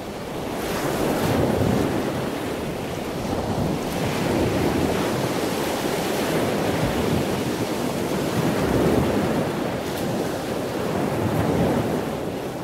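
Rushing surf-like water noise that swells and ebbs every few seconds, starting and stopping abruptly.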